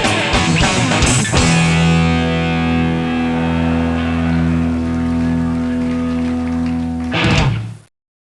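Rock band ending a song: fast full-band playing, then a final guitar and bass chord held ringing for about six seconds, closed by a last hit and an abrupt cut to silence near the end.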